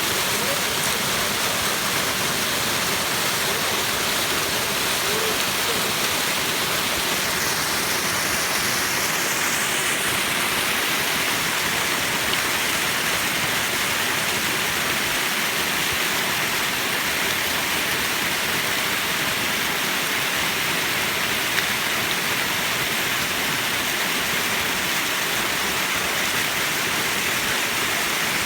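Water from a natural spring falling and splashing down a waterfall: a steady, even rush of water.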